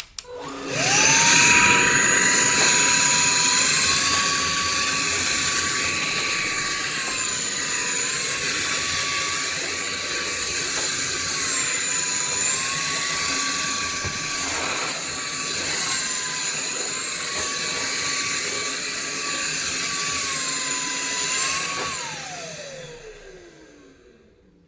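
Sulean X8 cordless stick vacuum's motor switching on and spinning up to a high, steady whine. Its pitch dips and recovers about four times as it runs. Near the end it is switched off and winds down with a falling whine.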